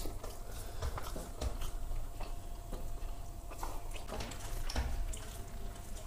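Close mouth sounds of eating rice by hand: wet chewing and lip smacks, with fingers mixing rice on steel plates, as scattered soft clicks. A faint steady hum runs underneath.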